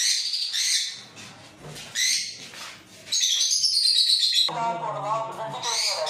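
A room of caged lovebirds chirping and chattering, many high chirps overlapping in quick succession. Near the end a brief low hum, like a person's voice, comes in underneath.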